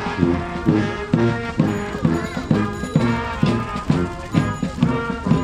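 Street brass band playing a marching tune: horns and trombone over a steady beat of about two a second.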